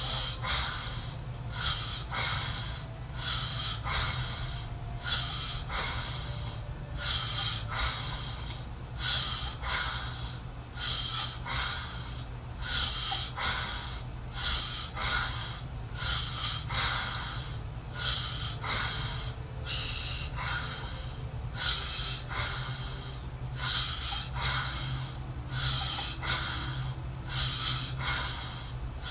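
A sleeping man snoring: noisy breaths in and out, about one a second, over a steady low hum.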